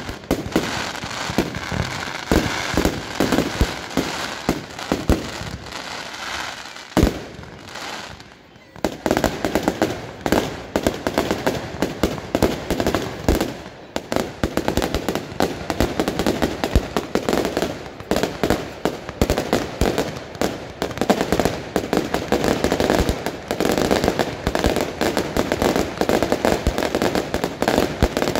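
Consumer firework batteries (cakes) firing in quick succession: a dense run of launch pops and crackling bursts. There is a sharp bang about seven seconds in, a short lull, then the barrage resumes at full pace.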